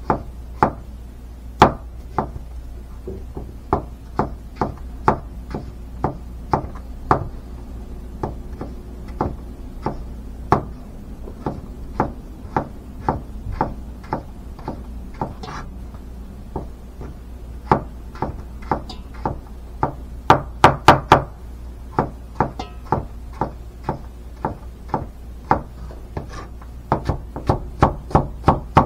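Crinkle-cut knife chopping raw purple potato on a cutting board: sharp knocks of the blade hitting the board, about two a second, with a quick run of louder strokes about two-thirds of the way through.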